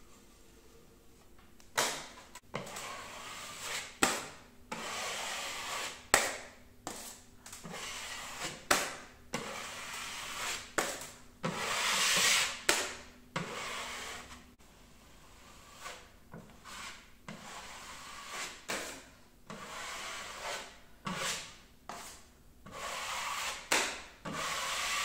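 Steel taping knife scraping along a plasterboard corner as it spreads and smooths joint compound, wiping excess off the edges: a run of irregular scraping strokes starting about two seconds in, some with a sharp tap as the blade meets the wall.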